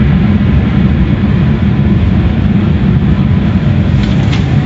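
Automatic car wash equipment running: a loud, steady, deep noise, with a few faint clicks near the end.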